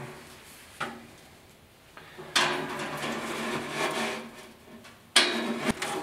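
Screwdriver grinding and scraping against a screw on a gas barbecue's igniter inside the metal firebox, in three bouts: a short one, a longer one in the middle, and a loud one near the end with a sharp click.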